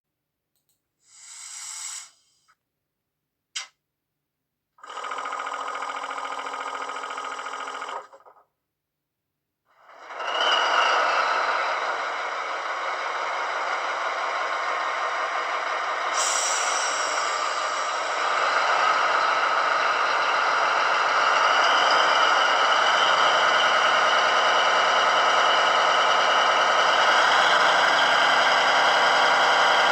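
DCC sound decoder in a model ÖBB 2048 diesel locomotive playing a start-up sequence through its small speaker: a short air hiss, a click, a few seconds of steady whirring, then the diesel engine starting about ten seconds in and running on, stepping up slightly in level twice.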